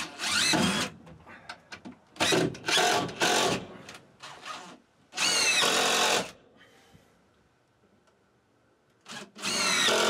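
DeWalt cordless drill driving screws into a wooden shelf support in several short bursts, its motor whine dropping in pitch as each screw bites.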